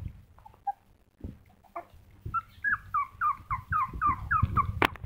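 Young puppy whimpering in a quick run of short, high, falling cries, about four a second, over the second half. Low bumps throughout, and a sharp click just before the end.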